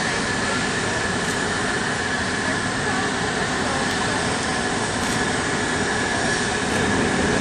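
Airbus A380's jet turbines running: a steady high whine over a loud, even rush of noise.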